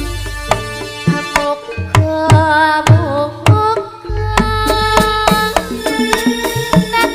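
Live jaranan music: a Javanese ensemble with quick hand-drum strokes over sustained metallic tones and a deep low hum. A wavering melodic line rises above it between about two and three seconds in.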